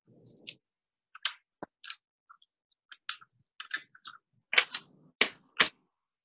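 Small pieces of cut glass clicking and tapping as they are picked up and set down on a glass base sheet: a string of short, sharp clicks, with a few louder ones near the end.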